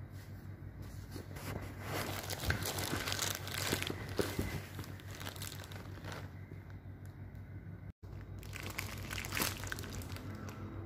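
Clear plastic wrapping crinkling as a survey prism is handled, in two spells broken by a brief gap, the first the longer. A steady low hum runs underneath.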